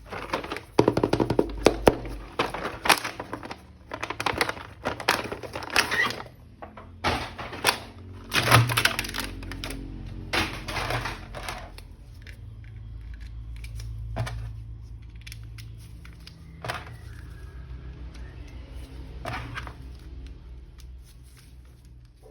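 Plastic toy figure and its packaging being handled, with rapid clicks, knocks and clatter for about the first eleven seconds, then only a few scattered clicks over a faint low hum.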